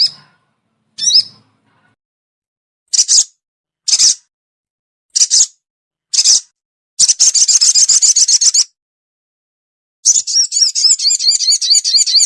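Lure recording of sogon bird calls: sharp high chirps, one about every second, then two longer runs of fast, wavering repeated notes.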